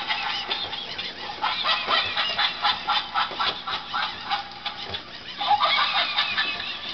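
A battery-powered animated plush monkey toy giving out squawking, animal-like chattering calls through its small, tinny speaker, with a short lull about five seconds in.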